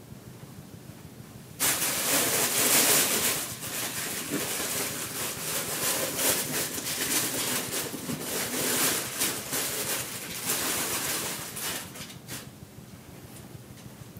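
Packing material rustling and crinkling as it is handled and pulled apart. The noise starts abruptly about a second and a half in, comes in a dense run of crackles, and dies away near the end.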